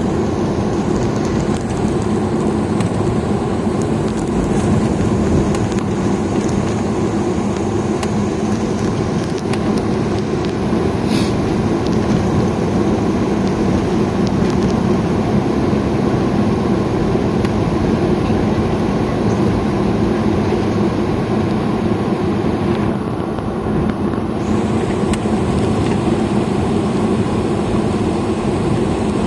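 Steady engine and road noise of a vehicle travelling along a road, a continuous low rumble that does not let up.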